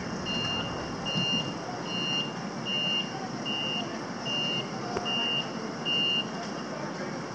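Caterpillar forklift's reversing alarm beeping steadily while the forklift backs up, a little more than one high beep a second, until the beeps stop about six seconds in. A steady low rumble runs underneath.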